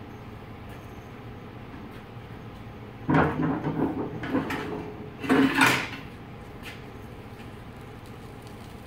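Metal clanking and scraping as a stack of test weights is set down on a steel diamond-plate floor scale and the hand truck's nose plate is pulled out from under them. It comes in two bursts: a longer one about three seconds in and a shorter, sharper one about five seconds in.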